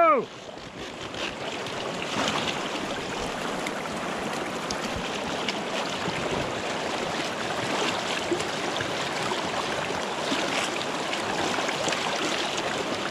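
River current rushing and splashing between the pontoons of a small inflatable pontoon boat, a steady wash of water with small scattered splashes.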